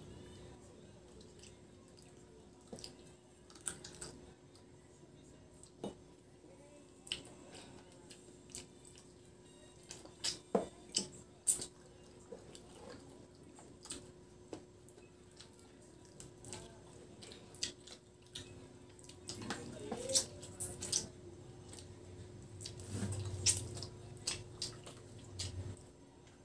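Mouth sounds of people eating chicken and rice with their hands: scattered wet smacks and clicks of chewing, with a faint steady hum underneath.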